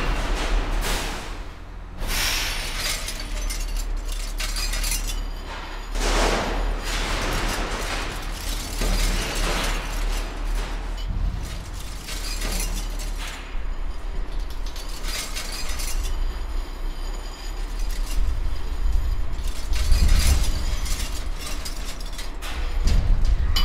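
Electronic music: a steady low bass drone under repeated noisy metallic crashes, scrapes and clinks.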